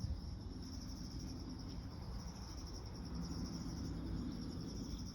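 A steady, high-pitched insect chorus trilling continuously, over a low rumble.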